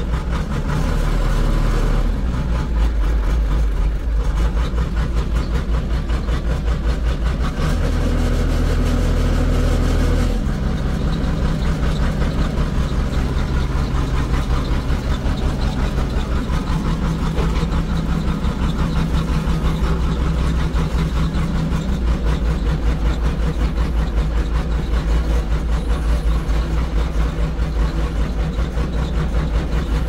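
Heavy diesel engine running. About a quarter of the way in it speeds up for roughly three seconds, then drops back to a lower, pulsing run.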